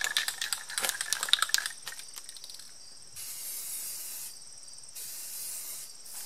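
Aerosol can of high-heat silver paint: a rapid clicking rattle in the first couple of seconds, then two spray bursts, each a steady hiss about a second long.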